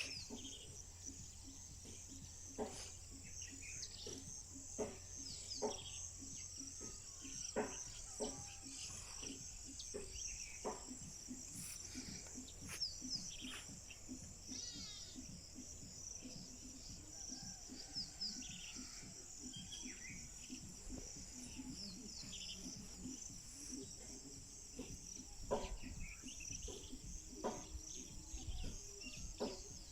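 Rural outdoor ambience: a steady, high, pulsing insect chirring, with scattered bird chirps and occasional short clicks and knocks.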